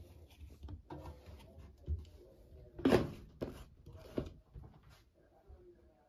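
A few separate knocks and clunks from handling an open front-loading washing machine, its door and drum. The loudest comes about three seconds in.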